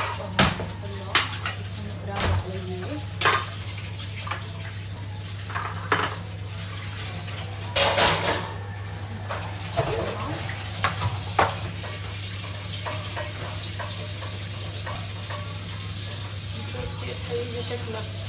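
Bowls, plates and utensils clinking and knocking on a kitchen counter as they are handled and set down: irregular clatters, busiest in the first twelve seconds or so and sparser after. A steady low hum runs underneath.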